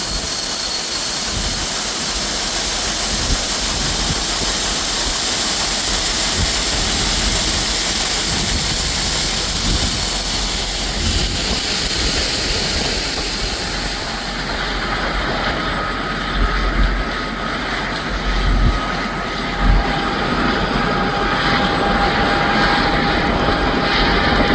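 Tractor running a grain cart's unloading auger as soybeans pour into a truck, a steady mechanical roar with a high hiss of flowing grain that eases off a little over halfway through. A few low thumps come in the middle.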